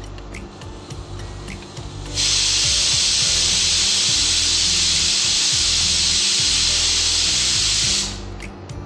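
Pressure cooker whistle: steam jets out past the weighted valve in a loud, even hiss. It starts suddenly about two seconds in and stops about six seconds later, and it is the sign that the cooker has reached full pressure while boiling the potatoes.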